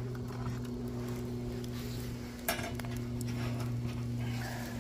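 A wire grill rack is set down on the rim of a metal barrel over embers, with one sharp metallic clink about halfway through. A steady low hum runs underneath.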